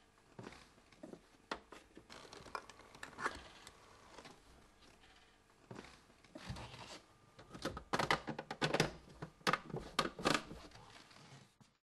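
Hands fitting parts of a Blum Servo-Drive drawer system: scattered small clicks and scraping, then a quick run of sharp clicks in the second half as a cover plate is pressed down onto the drawer bottom.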